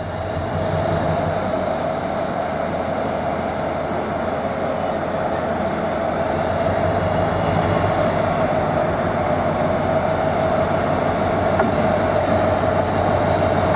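GBRf Class 60 diesel locomotive's eight-cylinder Mirrlees engine running steadily as it hauls a freight train slowly past, with a steady whining tone over the engine note. A run of sharp clicks comes near the end.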